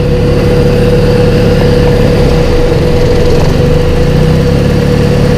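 Honda Civic's D15 four-cylinder engine idling steadily, heard close up in the engine bay, with a steady whine over the low engine sound.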